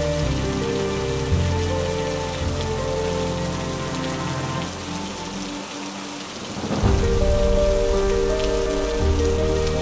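Steady rain falling on window glass, with soft music of held notes over it; about seven seconds in a low thunder rumble swells in.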